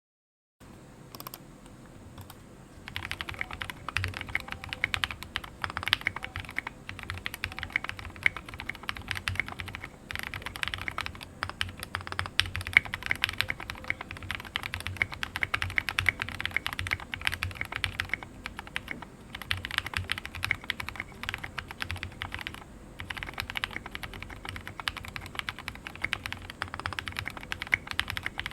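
Typing on a mechanical keyboard with lubed, filmed Gateron Merlot linear switches (slow-curve 60 g springs) in a plateless hotswap board, NPKC resin case and SA ABS keycaps. Rapid key strikes with brief pauses. It starts about half a second in with a few sparse clicks and turns into fast, continuous typing after about three seconds.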